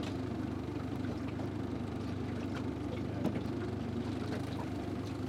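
A motorboat's engine running steadily, a low even drone.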